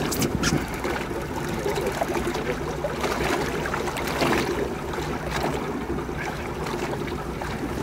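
Water splashing and lapping at the side of an aluminum fishing boat on choppy lake water, over a steady low rumble.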